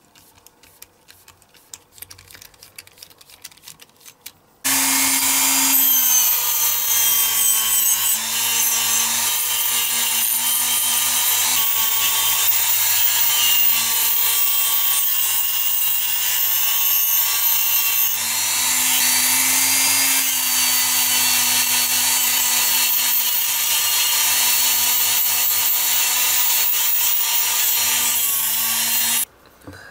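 Handheld rotary tool spinning a small brass wire brush wheel against the bare zinc diecast body of a toy car, scrubbing the metal clean. It starts suddenly about five seconds in, runs with a steady motor tone that dips a little as the brush is pressed on, and cuts off sharply just before the end.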